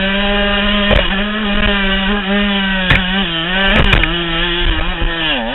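KTM 105 SX dirt bike's two-stroke engine held at high revs under load as it climbs a steep hill, with a few sharp knocks over the climb. The revs dip briefly near the end and then pick back up.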